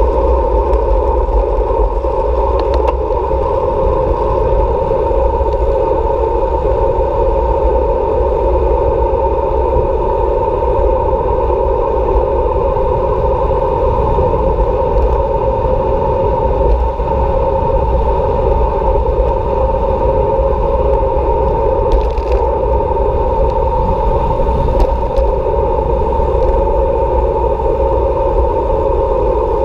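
Steady wind and road rumble picked up by a camera riding on a moving bicycle, with a deep rumble under a constant hum and a few faint clicks.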